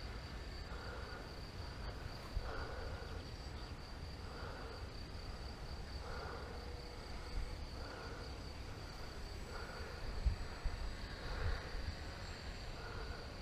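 Field insects chirring in a continuous high buzz, with a softer pulsing call repeating about once a second. Wind rumbles on the microphone, gusting a few times near the end.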